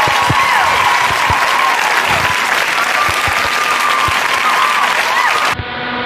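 Crowd applauding and cheering, with whistles rising and falling through it. It cuts off abruptly about five and a half seconds in, giving way to a duller sound with steady held tones.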